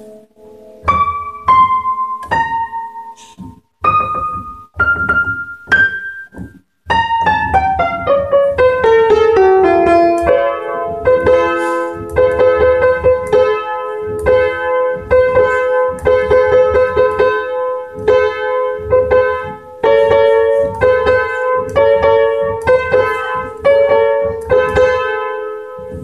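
Piano being played: a few separate high notes struck one at a time, then a quick run of notes stepping downward, then a steady repeating figure of notes rocking back and forth, with higher notes over it.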